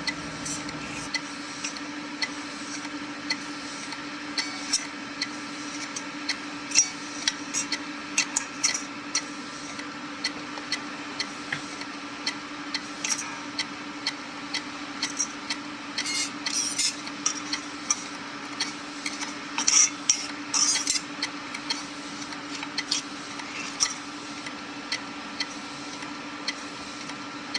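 Opened hard disk drive running with its cover off and peanut butter smeared on the platter: a steady hum from the spinning spindle motor, with irregular sharp clicks from the head mechanism, one or two a second, bunching into louder clusters about halfway through.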